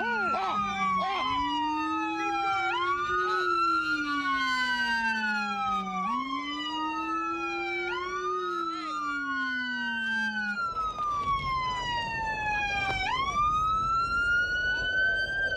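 Several police car sirens wailing at once, each rising and falling out of step with the others. The lowest-pitched siren stops about ten and a half seconds in, leaving a low steady rumble under the higher wails.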